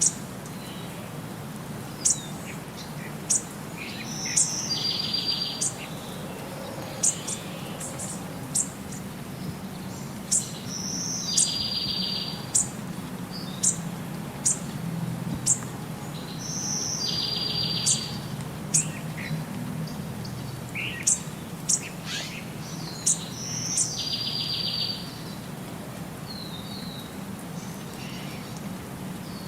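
Songbirds chirping: short sharp high chirps and a buzzy trill, with the same pattern repeating about every six seconds, over a faint steady low hum.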